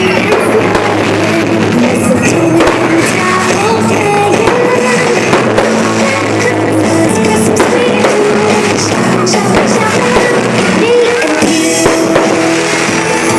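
Loud music with a singing voice, the soundtrack of a pyromusical fireworks show played over the sound system, with sharp fireworks bursts and crackles cutting through it.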